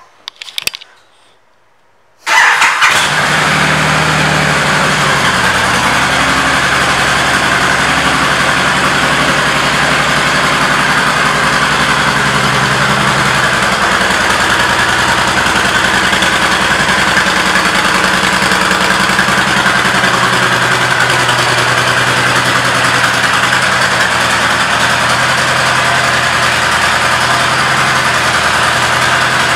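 Honda Fury's 1312 cc V-twin engine: after a few faint clicks, it starts suddenly about two seconds in and then runs at a steady idle.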